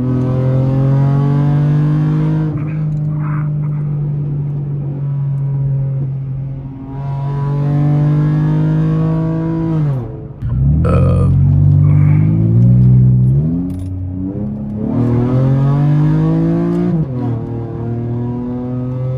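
Car engine fitted with aftermarket headers pulling hard under acceleration. Its pitch climbs and falls back again and again as it runs through the gears, with a sharp drop in pitch about ten seconds in.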